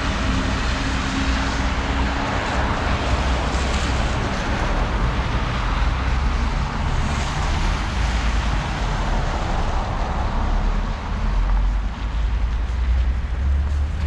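Steady city traffic noise: cars and buses driving on a wet, slushy road, with a deep low rumble under a hiss of tyres.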